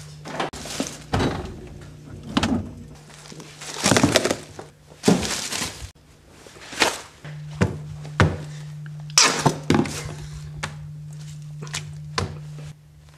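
Kitchen handling noises while a sandwich is made: a series of sharp thunks and knocks, a refrigerator door, and longer rustling stretches of packaging and paper, over a low steady hum that breaks off at cuts.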